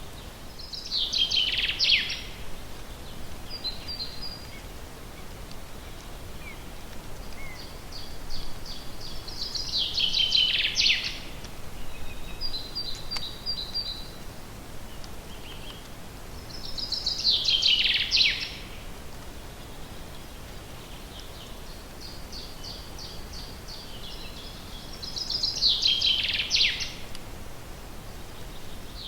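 A forest songbird sings the same short song four times, about every eight seconds. Each song is a quick trill that falls in pitch and lasts under two seconds. Fainter chirps come between the songs, over a steady background hiss.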